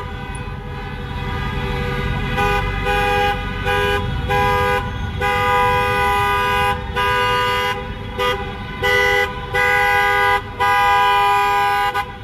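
Car horns honking in repeated long and short blasts with brief gaps, one after another, over the low rumble of slow-moving traffic. The first couple of seconds are mostly the traffic rumble before the honking picks up.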